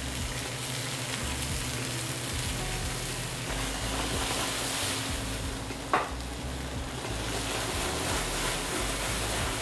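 Grouper searing in oil in a hot frying pan with onion and garlic: a steady sizzle, with one sharp knock about six seconds in.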